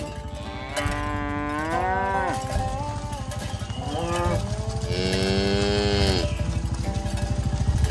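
Cattle mooing: three moos, the first and last long with a rise and then a fall in pitch, and a short one between them.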